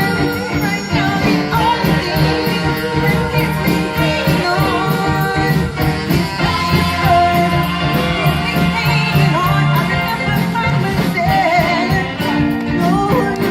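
Soul music: a singer over a band with a steady drum beat.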